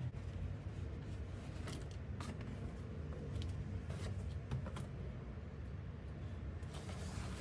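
Faint rustling and light clicks of packaging being handled, over a steady low hum.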